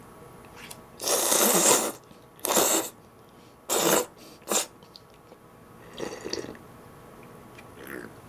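Thick udon noodles being slurped in four loud bursts, the first nearly a second long and the rest shorter, with softer mouth sounds later.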